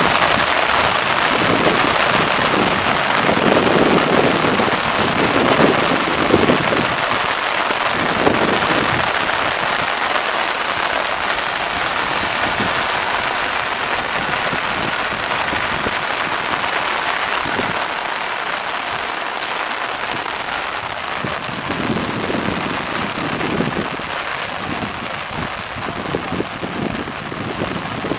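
Heavy rain falling steadily, a dense even hiss that eases slightly toward the end.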